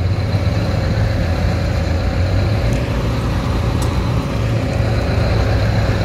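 Road roller's diesel engine running steadily at a work site: a constant low hum with a faint higher tone above it.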